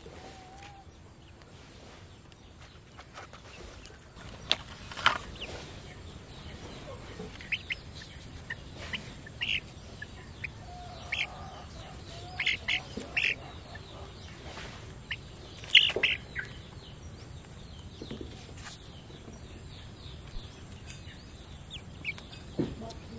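Birds chirping in short calls, with scattered sharp clicks and taps.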